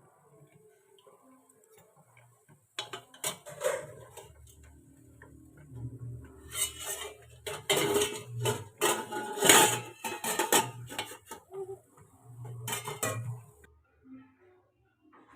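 Pots and lids clattering and clinking, a run of sharp knocks from about three seconds in until near the end, loudest in the middle. These are the cooking vessels being handled as the steamed junnu is taken out.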